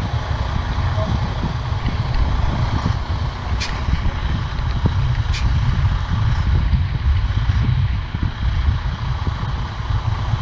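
Heavy tractor-trailer truck's diesel engine running with a low, steady rumble as it backs the hydraulic boat trailer down the slipway, with two short hisses partway through.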